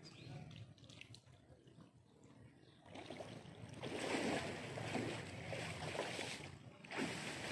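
Water splashing and sloshing, faint at first and growing louder about three seconds in, with a short lull near the end.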